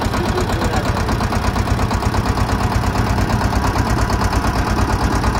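Motorboat engine running steadily with an even, rapid throb as the boat moves along the river.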